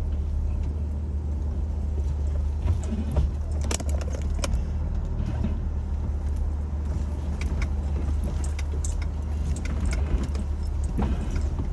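Jeep Wrangler TJ engine running at a low, steady crawl over rocks, with scattered clinks and rattles throughout.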